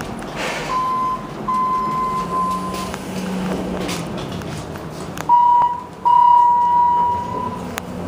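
ThyssenKrupp hydraulic elevator beeping its electronic signal: four steady, even tones at one pitch. The first two are fainter; the last two, about five and six seconds in, are louder, the last lasting about a second and a half.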